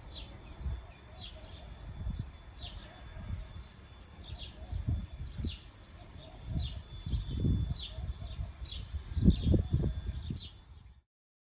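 A small bird chirping repeatedly, short high downward notes about once a second, over an uneven low rumble that swells louder near the end.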